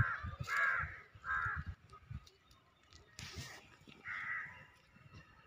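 Harsh cawing bird calls: two short calls in the first second and a half and another about four seconds in, with a brief rush of rustling noise a little after three seconds.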